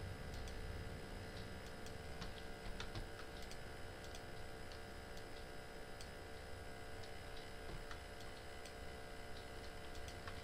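Faint, irregular computer mouse clicks over a steady electrical hum.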